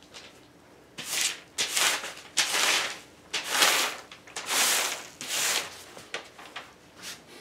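Newspaper rustling and crinkling as a cat paws and scrapes at it to cover up its urine: a run of about six loud rustles a second or so in, then a few fainter ones near the end.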